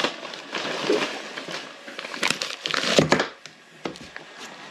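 A bag crinkling and rustling as it is handled and rummaged through, with irregular crackles and a louder crunch about three seconds in.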